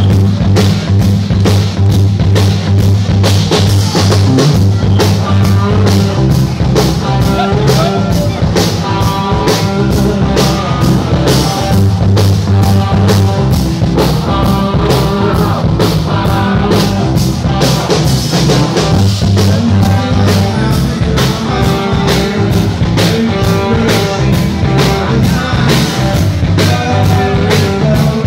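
A rock band playing live, loud and dense, with a steady drum beat and sustained bass notes under the guitars and keys.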